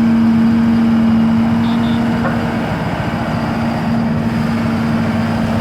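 Vibratory road roller's diesel engine running steadily, with a strong continuous hum.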